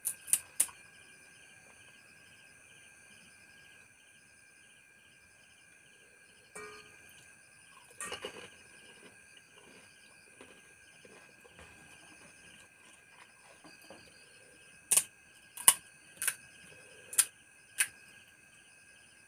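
Sharp, crisp cracks of hollow puri shells being broken open by hand: three in the first second, a few about halfway, and five in quick succession near the end. Underneath is the steady, pulsing chirp of night insects.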